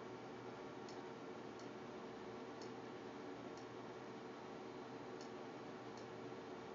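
Faint computer mouse clicks, six of them at uneven gaps of about a second, over a steady low hum.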